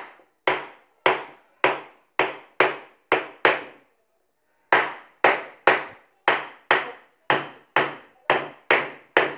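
Wooden carving mallet striking the handle of a wood-carving gouge, driving it into a wooden block: sharp knocks about two a second, a run of about eight, a pause of about a second, then about ten more.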